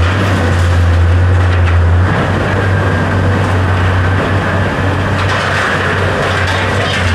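A motor running steadily: a low hum under broad noise, stronger for the first two seconds, easing in the middle, and strong again at the very end.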